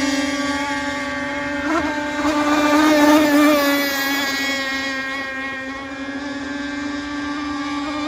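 Radio-controlled speedboat running at speed, a steady high-pitched motor buzz that wavers slightly in pitch. It is loudest about three seconds in and dips a little around six seconds.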